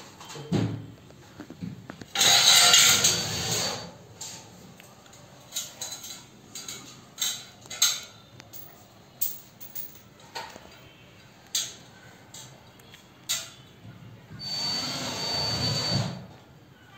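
Power drill running in two bursts of about two seconds each, one early on the overhead work and one near the end, the second with a steady high motor whine. Between them come scattered sharp knocks and clicks.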